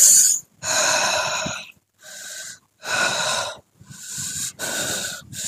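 A man breathing heavily in a run of about five loud, hissing, wheezy breaths, each under a second, with short pauses between them.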